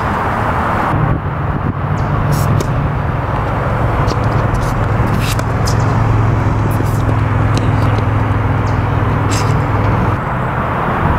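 A motor vehicle engine running steadily as a low hum from about a second in until near the end, over a constant outdoor noise haze. A few sharp knocks of tennis balls struck by rackets come every couple of seconds.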